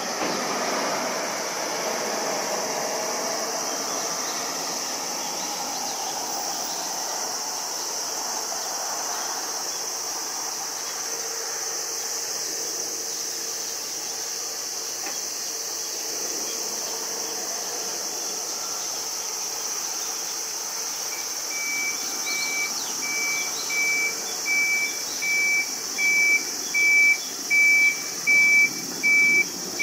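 Jet airliner's twin turbofan engines on the climb after takeoff, a broad steady rush heard from the ground that slowly fades as the plane moves away. From about two-thirds of the way in, a single-pitched electronic beep repeats about once a second over it.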